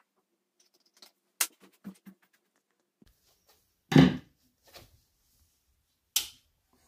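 Scattered clicks and light knocks of hands handling hardware and equipment. A heavy thump about four seconds in and a sharp knock a couple of seconds later are the loudest sounds.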